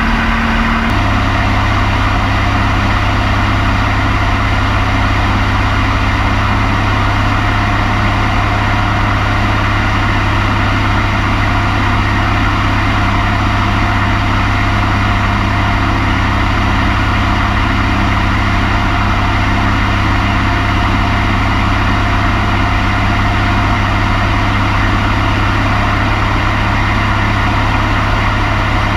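Van's RV-4 light aircraft's piston engine and propeller droning steadily, heard from inside the cockpit along with airflow noise. About a second in, the engine note shifts lower and then holds steady.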